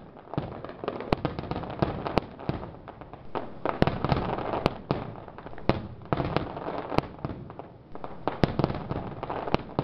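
Fireworks going off in a rapid, irregular series of sharp bangs over a steady crackle.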